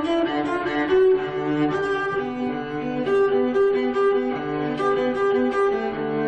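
Bowed string instruments playing music: held notes in several parts at once, moving to new notes every half second to a second.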